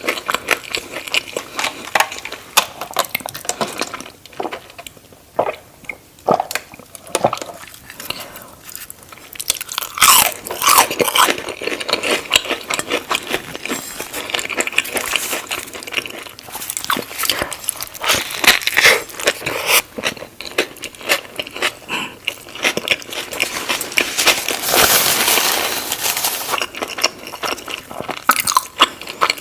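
Eating sounds: repeated crunchy bites and chewing, a dense run of crackling, crunching clicks with wetter chewing in between.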